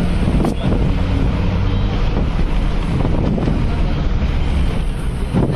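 Moving city bus heard from inside at an open window: engine running steadily, with road noise and wind rushing over the microphone.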